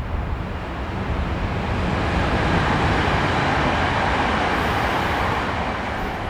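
City street traffic: a motor vehicle passes, its road noise swelling to a peak about halfway through and then fading, over the steady low rumble of traffic.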